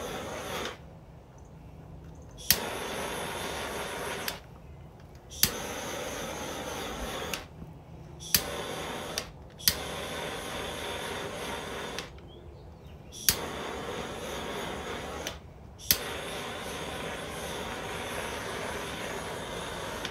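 Handheld butane torch hissing in stretches of one to four seconds, going quiet in between and relit six times with a sharp ignition click each time, as its flame is played over a fresh epoxy coat.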